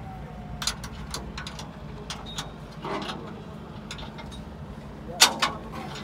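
Construction-site noise: a steady low machine hum with scattered clinks and knocks, and two sharp knocks in quick succession about a second before the end.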